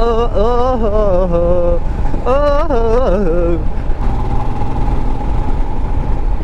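Royal Enfield Himalayan's single-cylinder engine running steadily on the move, under a low, even rumble of wind. A man's voice sounds over it for about the first three and a half seconds, pausing briefly near two seconds in.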